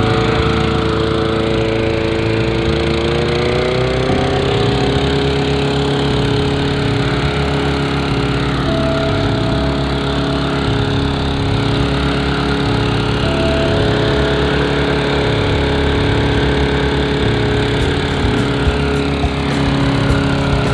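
Petrol walk-behind lawn mower's small single-cylinder engine running steadily while cutting grass. Its pitch rises slightly about four seconds in, then holds even.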